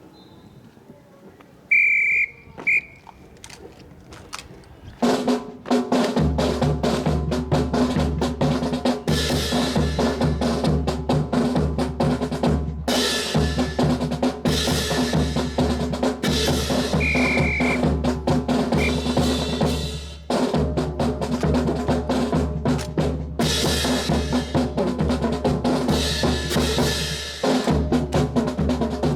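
Marching snare and bass drums of a drill-team drum corps playing a rapid cadence, which starts about five seconds in after two short, high whistle-like blasts. A brief pause in the drumming comes near the middle and again near the end, and another short high blast comes in between.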